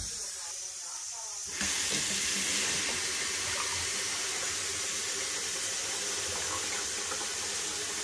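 Kitchen tap running, a steady stream of water pouring into the filter reservoir of a plastic water-filter pitcher, starting about a second and a half in.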